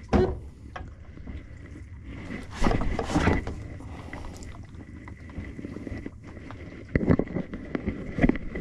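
Wooden companionway hatch boards of an old sailboat being handled and lifted out, with a knock at the start, a longer scraping stretch about three seconds in, and more clunks near the end.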